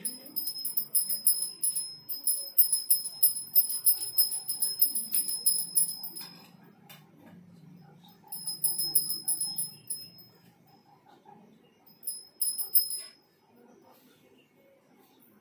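Marker squeaking across a writing surface as a diagram is drawn: a high, chattering squeal in bursts. The first burst lasts about six seconds, a shorter one comes about eight seconds in, and a brief one about twelve seconds in.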